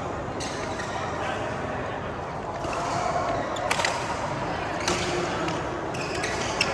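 Badminton rackets striking a shuttlecock in a rally: a few sharp hits about a second apart in the second half, over a background of voices.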